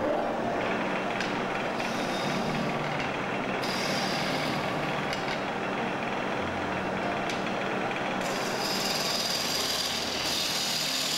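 Wood lathe running with a long-handled turning tool cutting into a spinning square block of wood, roughing it round: the motor's steady hum under the noisy scrape of the cut, which grows brighter and harsher about eight seconds in.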